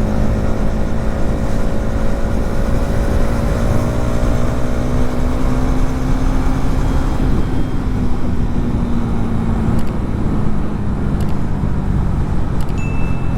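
Hero Xtreme 250R's single-cylinder engine running under way at a steady cruise, its note edging up slightly for the first half and then easing back, with a steady rush of noise around it.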